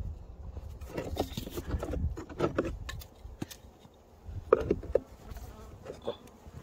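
Honeybees buzzing close by, in two spells about a second in and again past the middle. Sharp clicks and knocks from the hive being worked, over a low rumble.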